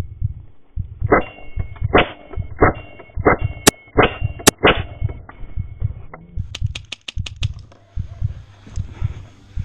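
Airsoft rifle fire: a few sharp single shots in the first half, then a quick burst of about eight rapid shots between six and seven and a half seconds in. Under it, low thumps about twice a second, from the player moving with the camera.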